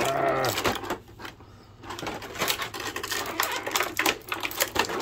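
Small hard plastic action-figure parts clicking, tapping and rattling as they are handled, in quick irregular clicks through the second half. It opens with a short wordless vocal sound.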